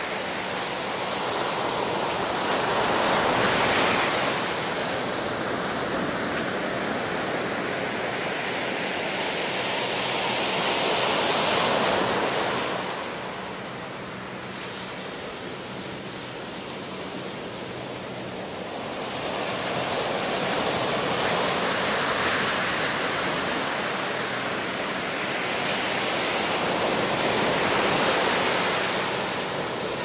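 Pacific Ocean surf breaking and washing up a sandy beach, rising and falling with each wave in about four surges, with a quieter spell around the middle.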